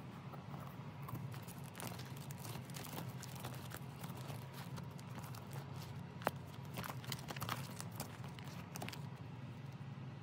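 Plastic photocard binder pages being handled and turned: irregular crinkles, taps and clicks of the plastic sleeves, over a steady low hum.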